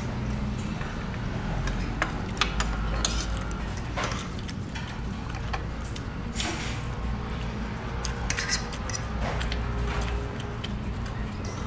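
Cutlery and dishes clinking now and then during a meal, a few sharp clicks at irregular times, over a steady low hum of the room.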